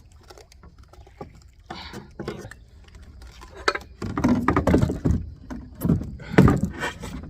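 Kayak being paddled and handled: scattered knocks against the hull and water sounds, growing louder and busier from about halfway through.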